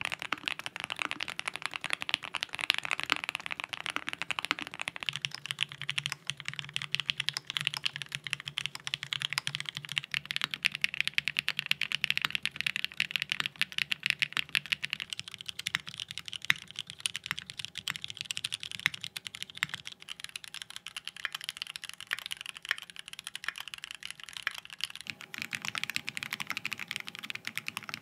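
Fast, continuous typing on mechanical keyboards, a different board every few seconds, so the character of the key clacks shifts at each change. The boards include lubed OP Black and lubed Cherry MX Black switches and stock SOTC switches.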